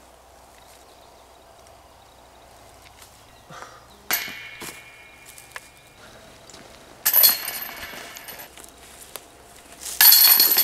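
Metal chains of a disc golf basket jingling as putted discs strike them, three times: about four, seven and ten seconds in, the last two the loudest, each rattle ringing on briefly before dying away.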